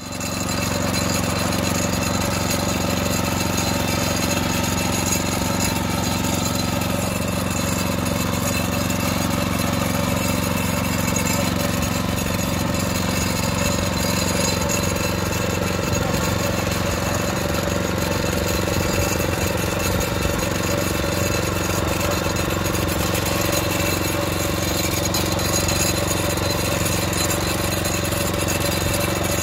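Small tracked crawler carrier's engine running steadily at an even speed as the carrier moves along a field row.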